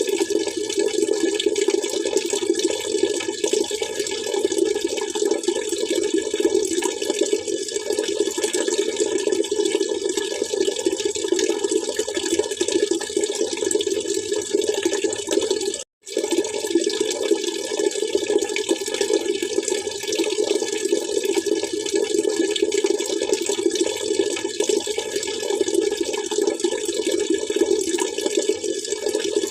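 Water splashing and trickling steadily, with a brief dropout about halfway through.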